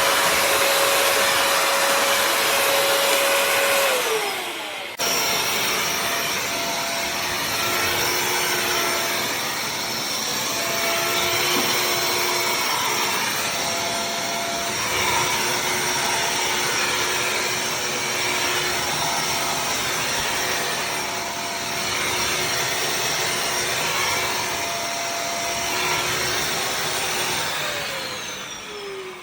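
Bissell CrossWave HydroSteam wet-dry vacuum running steadily with a motor whine. The sound changes abruptly about five seconds in, and near the end the whine falls in pitch as the motor winds down.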